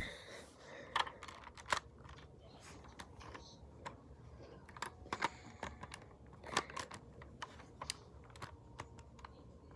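Irregular small plastic clicks and clatters of LEGO pieces being handled and pulled apart by hand, a dozen or so sharper clicks among softer rattling.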